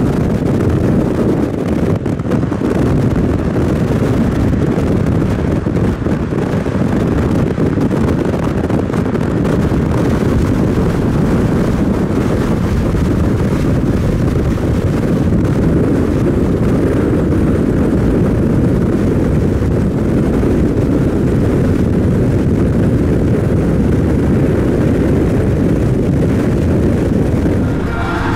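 Steady road and wind noise of a car driving at speed, with wind buffeting the microphone.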